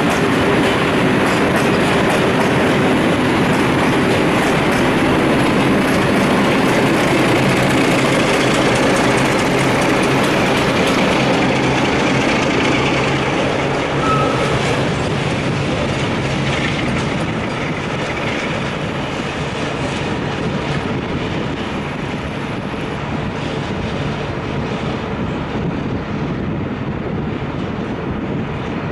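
Freight train of loaded hopper wagons rolling past behind an electric locomotive: steady wheel rumble and clickety-clack over the rail joints, with a low steady hum. A brief wheel squeal comes about halfway through, and the noise slowly fades in the second half.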